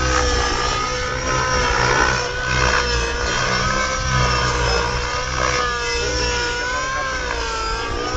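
Radio-controlled model helicopter flying 3D aerobatics: a steady whine whose pitch rises and falls repeatedly as the rotor speed and load change through the manoeuvres.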